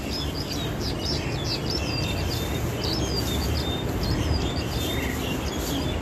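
Starling (jalak) singing in full voice: a busy run of short, quick chirps and whistles, over a steady low background rumble.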